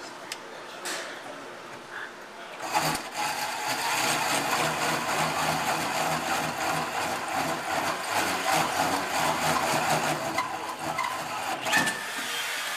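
Power drill spinning a hole saw into steel plate, the teeth grinding steadily through the metal; the cutting starts about three seconds in and stops with a knock near the end.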